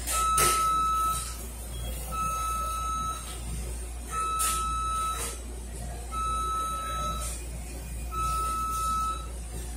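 Electronic alarm beeping: a steady high-pitched beep about a second long, repeating every two seconds, five times, with a couple of sharp clicks in between.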